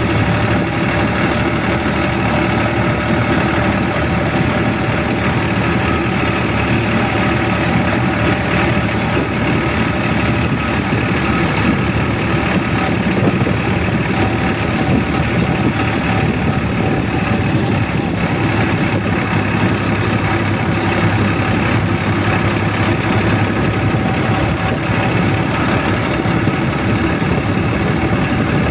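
Steady engine hum and road noise from a motor vehicle on the move, with a low engine note that strengthens about two thirds of the way through.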